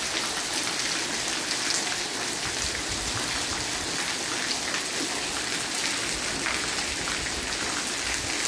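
Steady rain falling on wet concrete and stone walls, with many small drop spatters.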